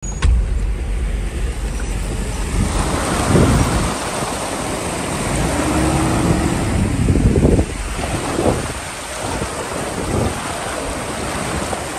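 Off-road vehicle fording a fast, shallow stream: water rushing and splashing against the wheels and body over the low running of the engine. The splashing comes in surges, loudest in the middle, and eases after about eight seconds.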